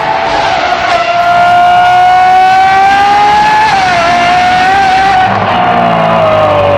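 Ferrari 812 Superfast's naturally aspirated 6.5-litre V12, fitted with a Secret Apple aftermarket exhaust, running loud at high revs. Its high pitch climbs slowly, dips briefly about halfway through, then falls away near the end.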